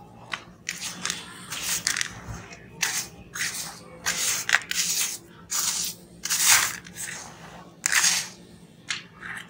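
Hands crumbling and squeezing sand-cement mix and small stones in a plastic basin: a string of gritty crunches and rustles, one or two a second, over a faint low hum.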